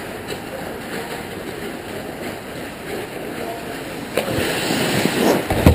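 Ice hockey rink sounds: skates scraping the ice and sticks clattering. About four seconds in comes a sharp knock, then the scraping grows louder and ends in a loud thump near the end as play reaches the net.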